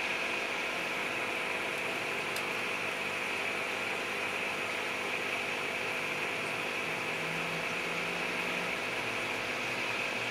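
A steady mechanical hum with an even hiss.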